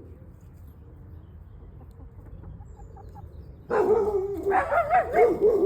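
Faint background with a few small chirps, then about three and a half seconds in, loud animal cries with a wavering, warbling pitch that keep going.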